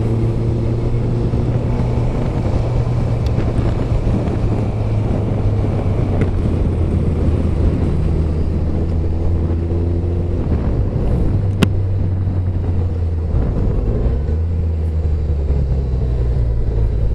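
Motorcycle engine running at a steady cruise, heard from the riding bike, with wind and wet-road tyre hiss. The engine note changes about ten seconds in and again about three seconds later, and there is one sharp tick in between.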